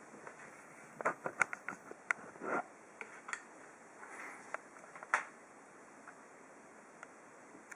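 Light clicks and taps from hands handling a PC case, with a couple of short rustles. A quick cluster of clicks comes in the first few seconds, and a sharper knock comes about five seconds in.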